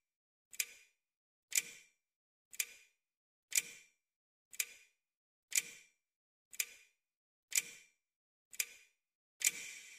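A clock ticking once a second, the strokes alternating louder and softer, with dead silence between them. Near the end another sound begins filling the gaps between the ticks.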